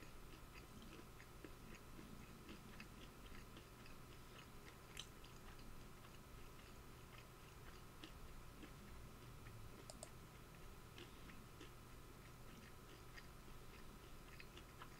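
Faint chewing of food with the mouth closed: soft, scattered mouth clicks over a steady low hum. Near silence overall.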